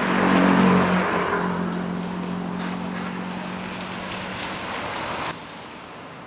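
A motor vehicle passing close by on the road: a surge of noise with a steady engine hum, loudest about a second in, then fading. It cuts off abruptly near the end.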